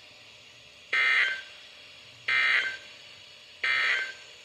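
Emergency Alert System end-of-message tones: three identical short, buzzy bursts of SAME digital data, about 1.4 seconds apart, marking the end of a weather warning.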